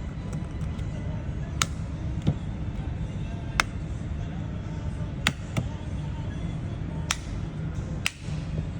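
Sharp, isolated clicks from a plastic car remote key being handled, about seven spread over several seconds, over a steady low hum.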